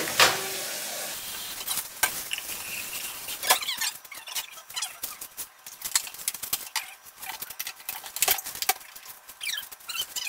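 Small dog whining in short, high, squeaky cries that bend in pitch, among scattered clicks and clatter of kitchen utensils.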